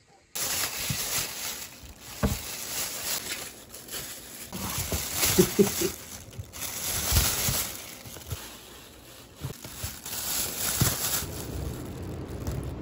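Plastic bags rustling and crinkling as bagged cobs of boiled corn are handled, in uneven swells.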